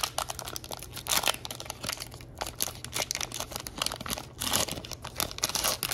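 Trading-card pack wrapper crinkling and tearing as it is peeled open by hand, a dense run of small crackles.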